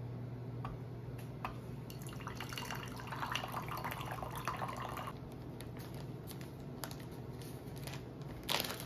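Hot water poured from an enamel stovetop kettle through a pour-over filter cone into a ceramic mug to brew tea: a splashing pour of about three seconds, with a few sharp clicks around it.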